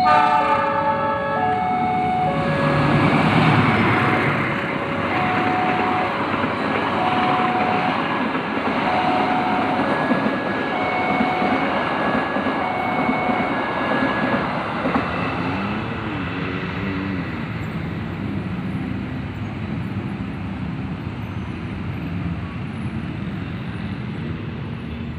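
A train running through a railway level crossing, its steady rumble loudest a few seconds in and then slowly fading. Over it the crossing's electronic warning alarm sounds short repeated tones, stopping about halfway through.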